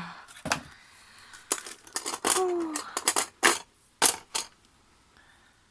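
Small loose fridge magnet blanks clicking and clattering as they are handled and sorted, in a string of sharp knocks spread over the first four seconds. About two and a half seconds in there is a brief falling vocal sound.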